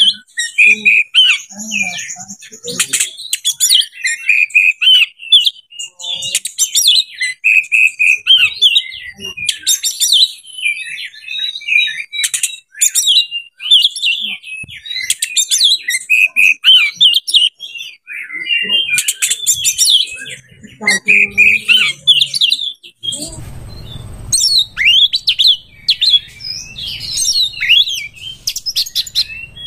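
Oriental magpie-robin (kacer) in breeding condition singing a fast, varied song of chirps, whistles and sharp clicking notes. A low background hum comes in about three-quarters of the way through.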